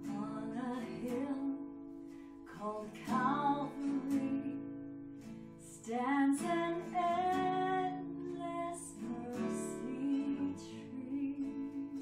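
Worship song: an acoustic guitar strummed with a voice singing.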